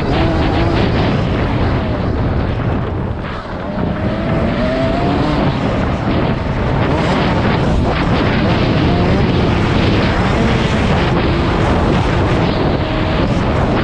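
Motocross bike engine heard from a helmet camera, its note rising and falling as the rider works the throttle, under heavy rushing wind noise on the microphone. The engine eases off briefly about three seconds in.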